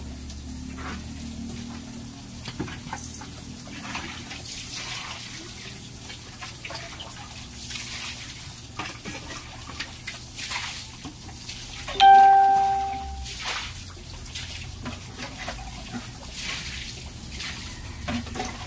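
Water sloshing and splashing as it is scooped from a bucket with a plastic basin and poured out. A single ringing ding about twelve seconds in is the loudest sound and fades over about a second.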